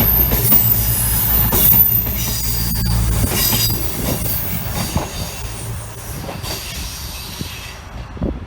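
Class 221 Voyager diesel multiple unit passing, its underfloor engines running with a high wheel squeal. The engine rumble drops away about three seconds in, and the train fades out near the end.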